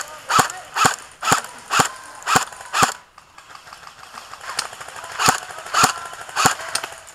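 Airsoft rifle firing single shots in a steady rhythm of about two a second. The shots pause for over a second about three seconds in, with only fainter shots heard, then the steady shooting resumes.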